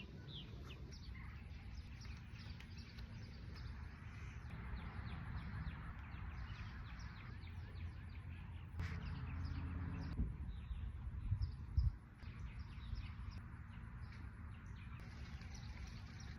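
Small birds chirping outdoors: a steady stream of short, high chirps over a low rumble. There are a couple of low bumps about two-thirds of the way through.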